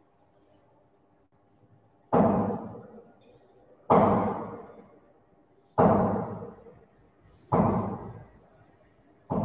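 A series of heavy thuds, about one every two seconds, each ringing on for about a second in a reverberant room.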